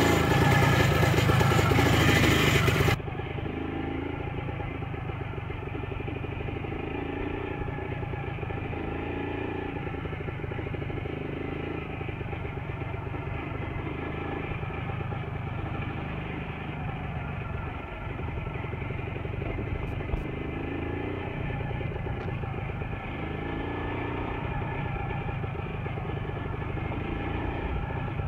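Minsk motorcycle's two-stroke single-cylinder engine running steadily under way, much louder and harsher for the first three seconds.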